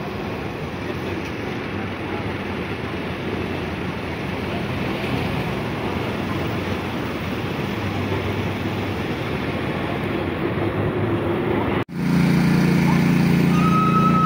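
Steady machinery noise. After an abrupt break about twelve seconds in, a small engine runs steadily and louder.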